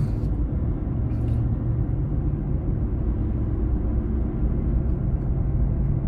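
Steady low rumble of a car's engine and tyres on the highway, heard from inside the moving car's cabin, with a faint click about a second in.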